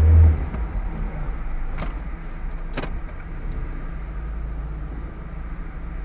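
Steady low rumble of a car idling in traffic, heard from inside the cabin, with a short low thud at the start and two sharp clicks about a second apart.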